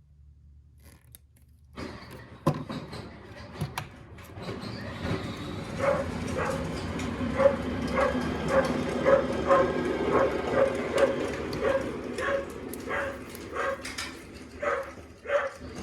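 A dog barking and yipping over and over, about twice a second, over a steady background noise that starts about two seconds in.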